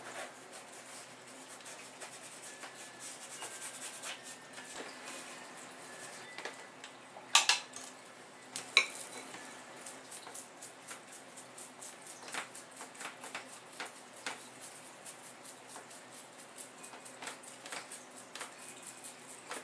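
Paintbrush working acrylic paint on a stretched canvas: a long run of short scratching strokes, with two sharp clinks about seven and nine seconds in.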